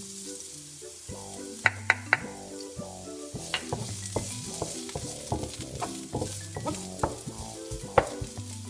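Diced onions sizzling in hot sesame oil in a wok, stirred with a wooden spatula that scrapes and knocks against the pan. The sharpest knocks come in a quick cluster about two seconds in and once near the end.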